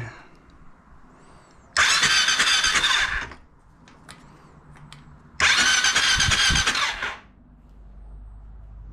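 Electric starter cranking the Honda TRX700XX ATV's single-cylinder engine in two bursts of about a second and a half each, with a whining squeal. The engine does not catch, as its fuel injector is unplugged for a spark check.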